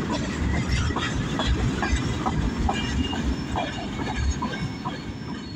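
CN freight train's cars rolling past, with steel wheels clicking over the rail joints in an uneven rhythm over a low rumble, easing off slightly toward the end.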